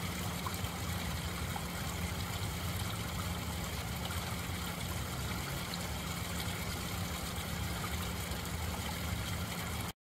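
Small rock waterfall splashing steadily into a garden pond, a continuous rush of falling water with a low rumble underneath.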